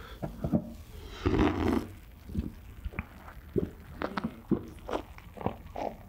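A person eating into a close microphone: short sharp clicks and crunches of biting and chewing, with a denser noisy stretch lasting about half a second a little over a second in.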